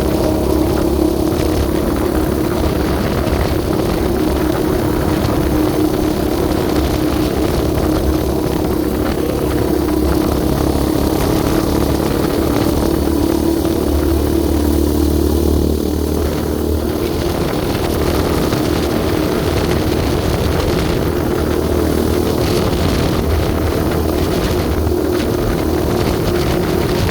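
Yamaha Raptor 700R quad's single-cylinder engine running steadily while riding, its note shifting about two-thirds of the way through.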